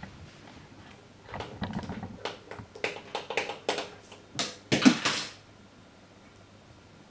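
A pen being batted about a wooden desk by a cat's paw: a quick run of light clicks and taps, with a louder clatter about five seconds in, as the pen is knocked to drop.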